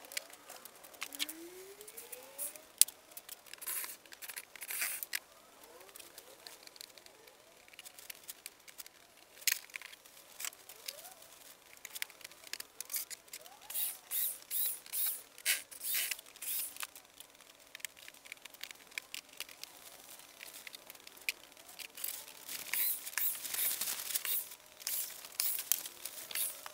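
Hand work on a caravan's wooden cabinet front: scattered clicks, knocks and scraping, with a cordless drill driving screws in short runs. A longer, louder stretch of scraping and rustling comes near the end.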